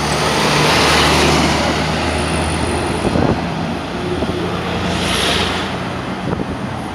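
Road traffic on a busy street: vehicles passing close by over a steady low engine hum, with one pass swelling about a second in and another about five seconds in.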